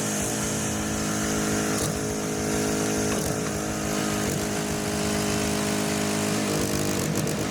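An engine running steadily at a constant speed, with a few faint knocks.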